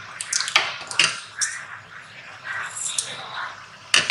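Small metal sewing tools handled on a worktable: a run of light clicks and clinks, with a louder metallic clink near the end as the small scissors are picked up.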